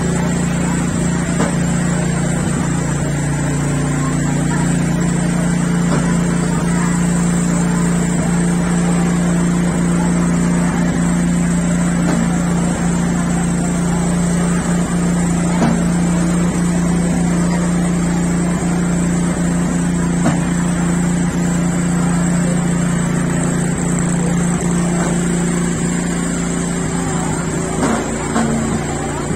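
An engine running steadily with a constant low hum and no change in speed, with a few faint knocks near the end.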